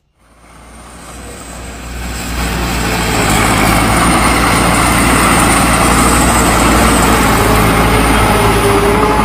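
Engine of a customised crawler tractor running, rising from silence over the first two or three seconds and then loud and steady.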